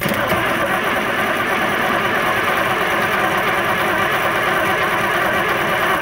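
The diesel engine of an older John Deere scraper cranking steadily on its starter without firing, a sign that fuel is not reaching the injection pump's supply line.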